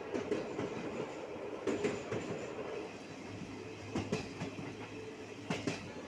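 Train running, heard from inside the coach: a steady rumble of the wheels on the track, broken by sharp clacks over rail joints that come in close pairs a few times.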